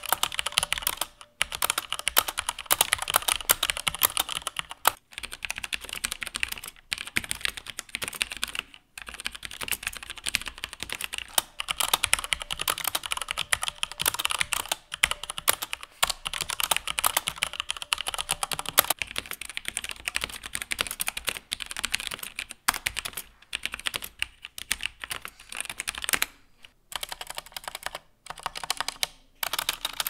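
XPG Summoner mechanical keyboard with Cherry MX Red linear switches being typed on fast and steadily, a dense clatter of keystrokes broken by a few short pauses. The switches are mounted on an aluminium top plate in a floating design, which the owner says gives a metallic ping from the switch springs, and it has plain, unlubricated Cherry-style stabilizers that he says can be heard in this test.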